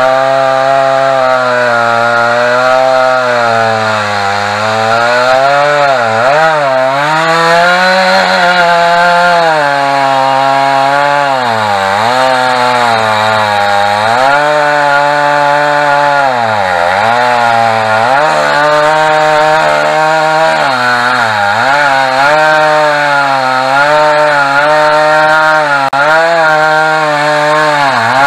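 Two-stroke chainsaw cutting into a wooden tree stump, its chain freshly sharpened. The engine runs at high revs throughout, its pitch dipping repeatedly as the chain bites into the wood and picking back up between cuts.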